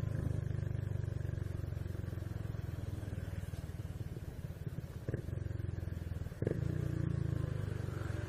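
Honda Biz 125's single-cylinder four-stroke engine running steadily while riding, with two short knocks about five and six and a half seconds in, after which the engine gets louder.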